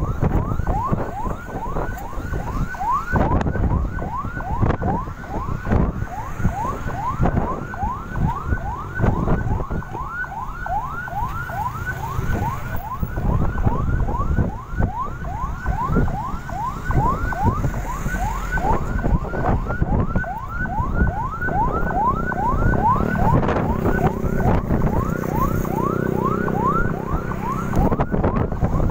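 A siren wailing in rapid falling sweeps, about three a second, over a heavy low rumble. A lower steady drone joins for a few seconds past the middle.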